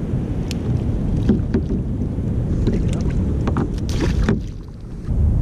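Wind buffeting the microphone on a kayak at sea, with light splashes and knocks of water against the hull. The wind eases briefly near the end.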